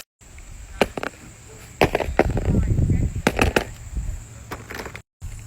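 Fidget toys being handled: a series of separate sharp clicks and pops, with a few duller knocks in the middle. The sound cuts out briefly at the very start and again about five seconds in.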